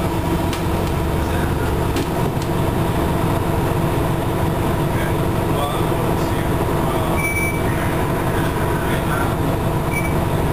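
Cabin of a 1996 Nova Bus Classic transit bus on the move: its Detroit Diesel Series 50 engine gives a steady rumble, with a constant whine on top, and the air conditioning is on.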